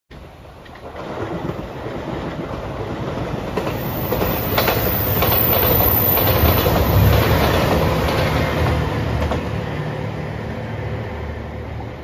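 JR Shikoku 2700 series diesel express train passing at speed, its engines droning low and its wheels clacking over rail joints. The sound builds to a peak about six seconds in, then fades as the train pulls away.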